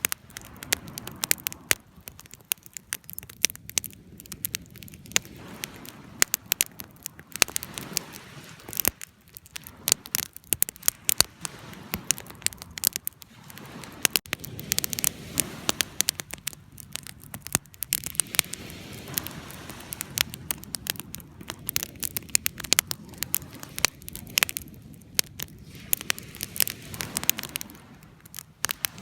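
Wood fire burning, crackling and popping with many irregular sharp snaps over a low rushing of flames.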